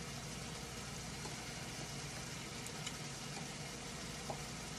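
Ground beef frying in a pan on the stove, a steady low sizzle with an even hum beneath it.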